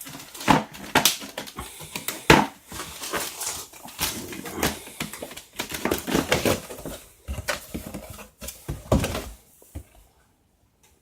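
Packaging being handled as the cover comes off a boxed drill bit set: irregular rustling, clicks and knocks that stop about nine and a half seconds in.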